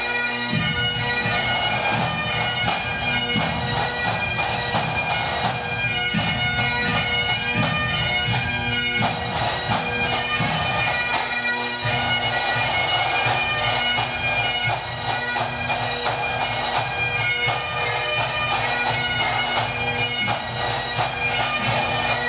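Pipe band playing: Great Highland bagpipes sounding a melody over their steady drones, with side drums keeping the beat.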